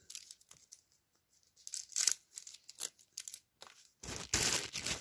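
Toy packaging wrapper crinkling and tearing in the hands as it is pulled open, in scattered short crackles with a louder burst of crinkling near the end.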